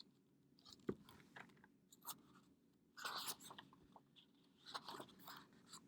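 Faint crinkling and rustling of a picture book being handled as its pages are turned, with a short click about a second in and louder rustles about three and five seconds in.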